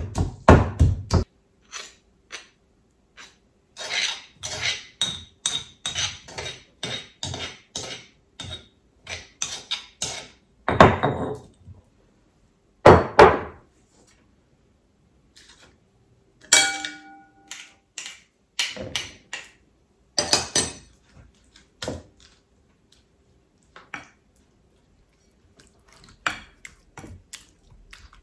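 Kitchen utensils and dishes knocking and clinking during cooking prep: a run of regular knocks at about two a second, then scattered thunks and one ringing clink of a dish about halfway through.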